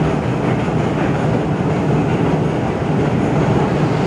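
Steady rumbling din of a metro station, echoing in a long arched escalator tunnel.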